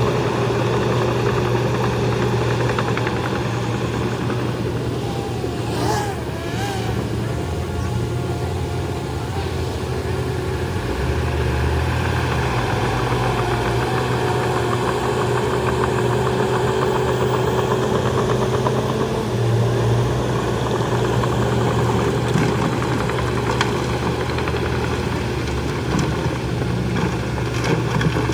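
Bulldozer's diesel engine running steadily at work, its pitch dropping for a few seconds partway through and then coming back up.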